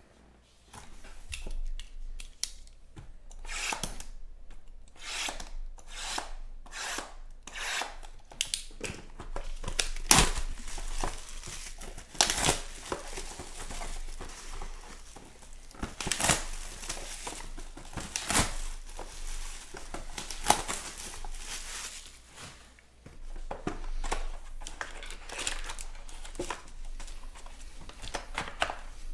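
Clear plastic shrink-wrap being torn and crumpled by hand off a box of trading cards: irregular crinkling and tearing rustles that stop and start.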